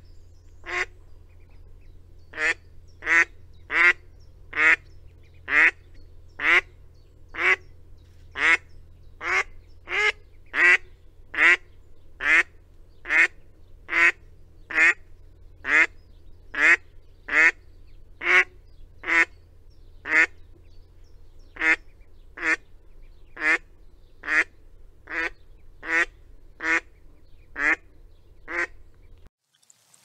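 Gadwall calling over and over, a short call that sweeps sharply up in pitch, repeated about once a second some thirty times; the calls stop about a second before the end.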